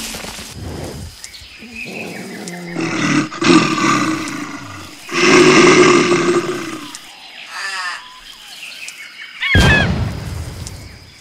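Dubbed dinosaur roar sound effects: a series of roars, the longest and loudest about three and five seconds in, then a short rattling call, and a sudden shrill screech near the end.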